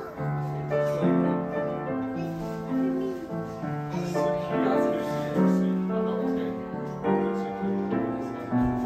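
Piano played live: a flowing melody of single notes and chords over held low notes.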